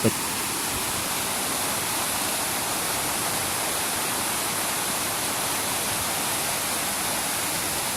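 Floodwater rushing steadily, an even unbroken noise.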